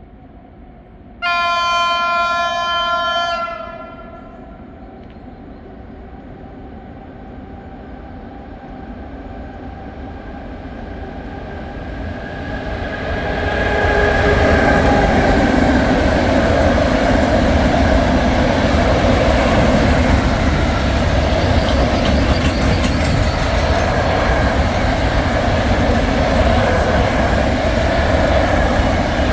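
Train horn sounds one steady blast of about two seconds. The train then approaches, its rumble building over about ten seconds into a loud, steady passing roar of a train going by close at hand.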